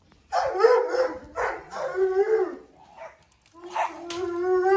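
A dog giving three short, whining barks, then a long, steady howl starting near the end.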